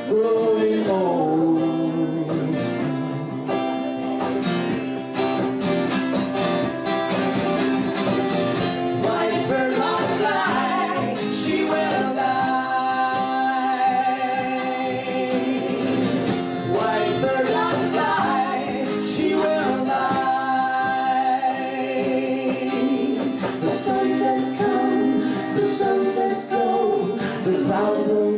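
Live band music: singing over guitar accompaniment, with held, gliding vocal lines.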